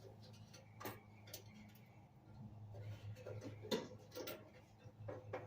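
Scattered faint clicks and taps of hand tools, such as pliers, working at a clothes dryer's heating element and its metal connections, over a steady low hum.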